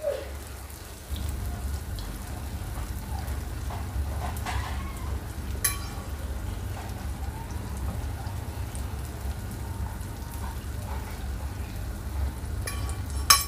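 Unniyappam frying in hot oil in an appam pan: a steady sizzle and crackle, with a low rumble under it from about a second in. There are two short sharp clicks, one about six seconds in and one near the end.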